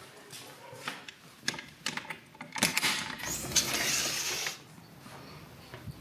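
Sliding glass door being worked open: a few knocks and clicks from the frame, then a scraping, rattling run of about two seconds as it slides along its track.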